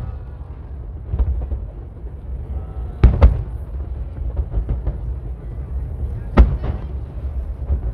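Aerial firework shells bursting: loud booms about three seconds in, two in quick succession, and another a little past six seconds, with a smaller pop near the first second and a steady low rumble in between.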